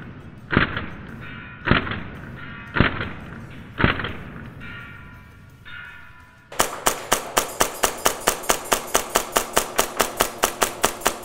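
Tokyo Marui Hi Capa 5.1 Gold Match gas blowback airsoft pistol fired on green gas as fast as the trigger can be pulled: a long, even string of sharp cracks at about seven shots a second, starting about six and a half seconds in. Before that, music with four spaced, echoing hits about a second apart.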